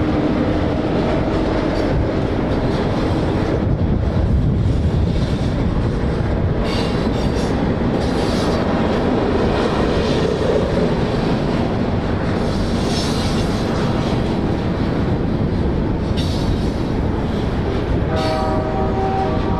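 Freight train rolling on the rails with a steady loud rumble and wheel noise. Near the end a diesel locomotive's horn sounds a held multi-note chord.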